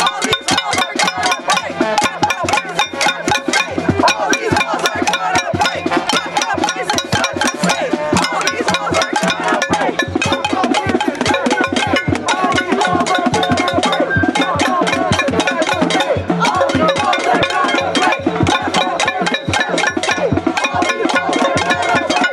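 A protest crowd's noisemaking: a continuous, fast clatter of drums and other struck objects, several hits a second without a steady beat, over a wavering din of other noisemakers.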